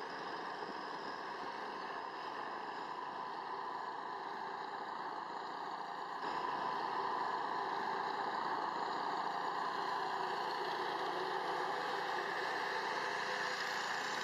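Engines of heavy multi-axle military missile-carrier trucks running steadily, a continuous mechanical hum that gets louder about six seconds in.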